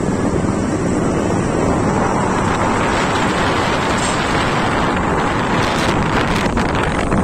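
Wind buffeting a phone's microphone on a moving motorbike: a loud, steady rushing noise, heavy in the low end.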